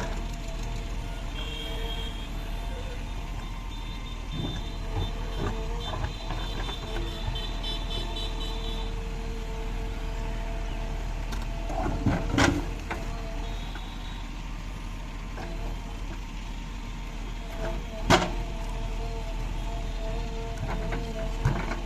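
JCB 3DX Ecoxpert backhoe loader's diesel engine running steadily while the machine works. Two sharp knocks stand out, one about halfway through and one near the end, and a faint repeated high beeping is heard in the first several seconds.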